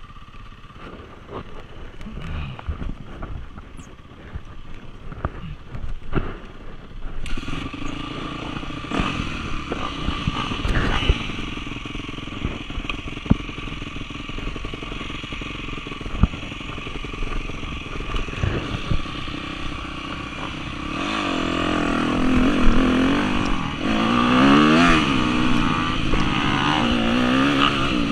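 2003 Yamaha YZ250F four-stroke single-cylinder dirt bike being ridden, heard close up from the bike itself: running low with scattered knocks and rattles at first, getting louder about seven seconds in, then revving up and down over and over near the end as the throttle is worked.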